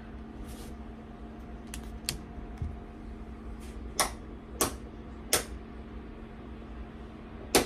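Cutlery clicking against a ceramic dinner plate, about six sharp clicks spaced irregularly, over a steady low hum.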